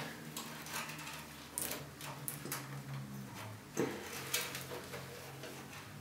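Scattered light clicks and handling rustles of cables being wrapped and fastened with plastic cable ties inside a PC case, a few irregular ticks about a second apart, over a faint steady low hum.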